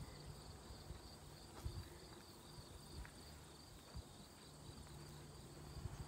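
Faint, steady, high-pitched chirring of an outdoor insect chorus such as crickets, with a low background rumble and a few faint thumps.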